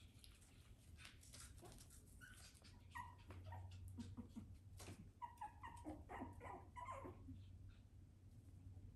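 Pomeranian puppies giving faint, short, high-pitched yips and whimpers while playing, in a quick run of calls from about three seconds in to about seven and a half seconds in.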